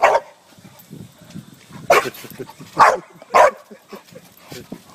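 Dog barking four times, the last three coming within about a second and a half.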